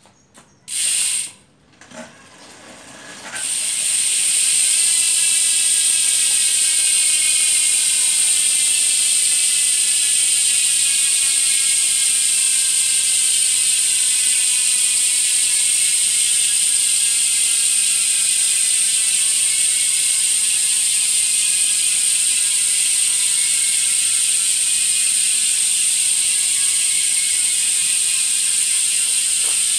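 AMP Prime carbon road wheel's freehub buzzing as the rear wheel freewheels: a loud, fast, even ratchet of pawl clicks that starts about three seconds in, after a short burst as the wheel is spun. Its pitch falls slowly as the wheel slows.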